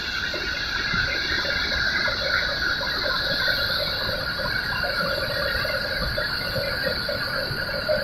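Steady rushing roar of a fast mountain river's white-water rapids and a waterfall pouring into them.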